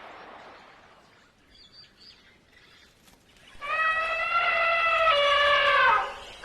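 Elephant trumpeting: one loud, long call starting about halfway through, held steady and then falling in pitch as it ends. A few faint bird chirps come before it.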